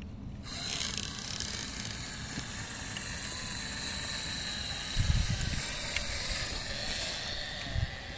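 Electric motors and plastic gear trains of a LEGO Technic RC off-road car whining as it drives. The whine starts about half a second in and eases off near the end, with low thumps about five seconds in and again near the end.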